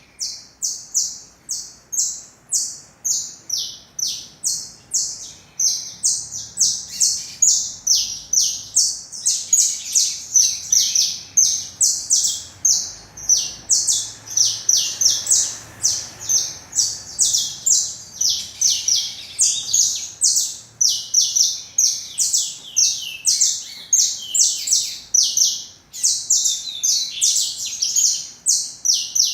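Caged songbirds singing: an unbroken run of short, high chirping notes, about two to three a second.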